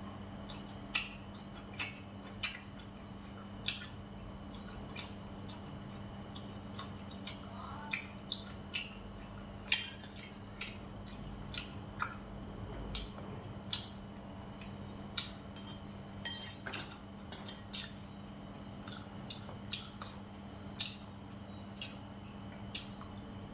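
Metal spoon and wooden chopsticks clinking and scraping against ceramic bowls while eating, in sharp scattered clicks. A steady low hum runs underneath.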